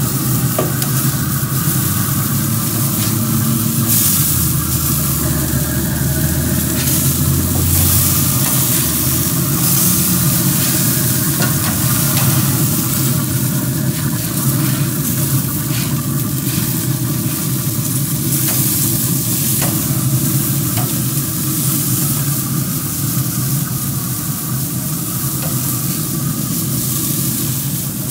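Burger patties sizzling and crackling on the grates of a Pit Boss pellet grill, with a steady low hum underneath.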